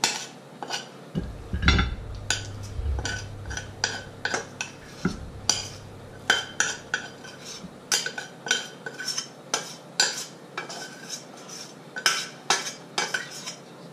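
Small metal utensil scraping and tapping inside a stainless-steel saucepan, scooping food out onto a plate: a string of sharp metallic clinks, roughly one to two a second, with a heavier knock a little under two seconds in.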